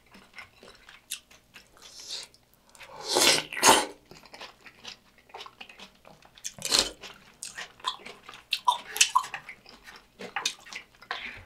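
Close-miked eating sounds: a spoonful of kimchi udon broth slurped and the food chewed, with wet mouth clicks. There are a few louder slurps, about three seconds in, near the middle and again a couple of seconds later.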